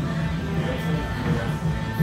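Background music with guitar, playing steadily.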